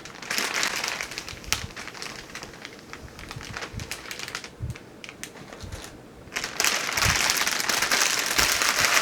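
Packaging being crinkled and rustled by hand while unpacking a sweater: softer, scattered crackling at first, then a loud, dense burst of crinkling starting about six and a half seconds in.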